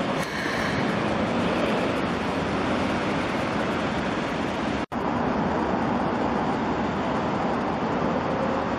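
Steady running noise of Keikyu electric trains at a station platform, broken by a short gap about halfway through; in the second half a Keikyu 1000 series stainless train is approaching.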